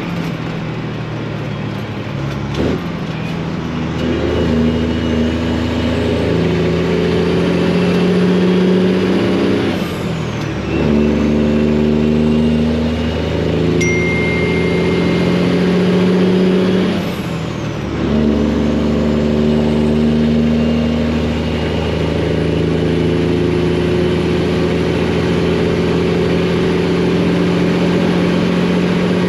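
Freightliner semi truck's Detroit diesel engine pulling hard under load, with a loud exhaust. The engine note drops and picks up again twice, about a third of the way in and a little past halfway, as the driver shifts gears. A faint turbo whistle glides away at each shift.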